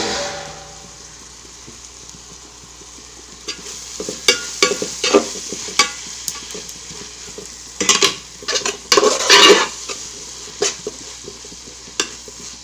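Spoon stirring and scraping sautéing onions and green chillies in an uruli, with repeated clinks against the pot that start about four seconds in and are loudest a little past the middle; a low frying sizzle runs underneath.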